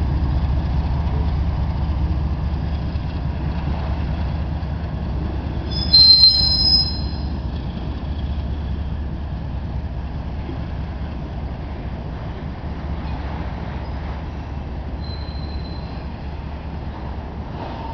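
Freight train of auto rack cars rolling past, a steady low rumble that slowly fades. A short, high wheel squeal comes about six seconds in and is the loudest moment, and a fainter squeal follows near the end.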